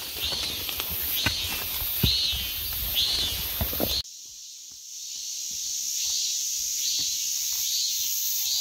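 Forest insects buzzing steadily, with a short high call repeating about every three-quarters of a second. In the first half there are close footsteps and the brushing of dwarf bamboo leaves along the trail; these stop abruptly about four seconds in, leaving the insect sound and the repeating call.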